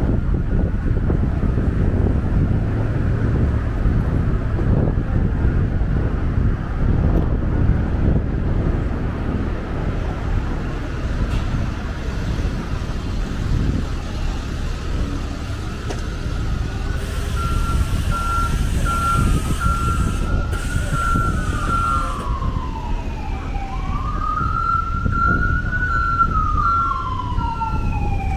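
Street traffic rumble. About halfway in, an emergency vehicle siren starts up, wailing with its pitch sweeping up and down, alongside a rapidly pulsing steady tone.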